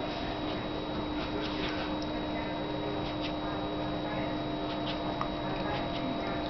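Faint short scratchy licking sounds, a few scattered through, as a cat licks a small dog's head and fur, over a steady electrical hum.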